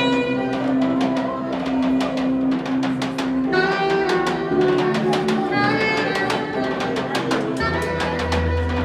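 Live band playing during a sound check: a drum kit keeps a busy beat under held melody notes that step in pitch. A deep bass note comes in loud near the end.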